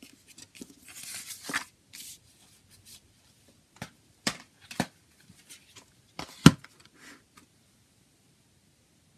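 CD box set and its paper booklet being handled: a rustle of paper and card sliding for about a second and a half, then a few light knocks of the packaging against the table, the loudest about six and a half seconds in.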